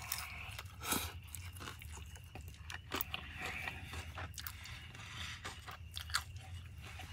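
A person chewing a mouthful of fish taco, with short crunches now and then.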